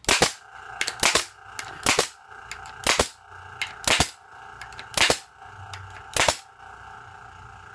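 Makita AF505 pneumatic brad nailer firing 50 mm brads into plywood, seven sharp shots about a second apart, with lighter clicks between them and a steady hum underneath; the shooter counts three misfires among them.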